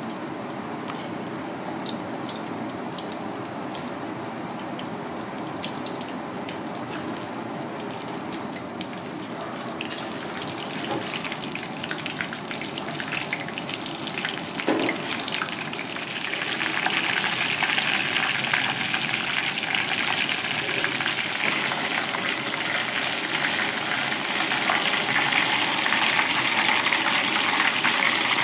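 Battered razorfish pieces deep-frying in hot oil, a steady sizzle with fine crackling. It grows louder and more crackly about halfway through.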